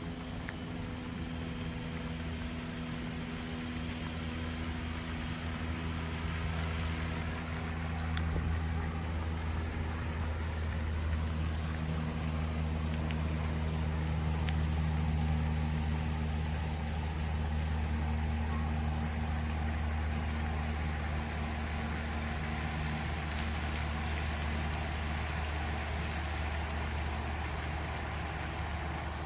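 An engine running steadily: a low, even hum with a rushing hiss over it.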